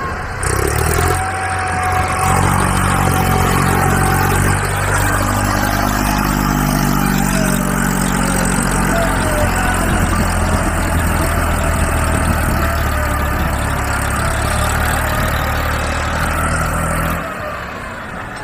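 A heavy engine running steadily at idle, like a truck's, starting about half a second in and dropping off near the end.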